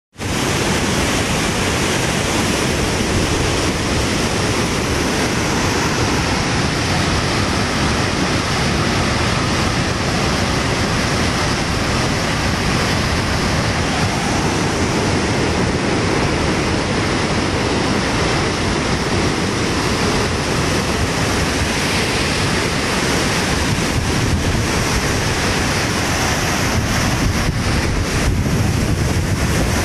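Muddy floodwater rushing and churning over rocks in a river swollen by monsoon rain: a steady, dense rush of water.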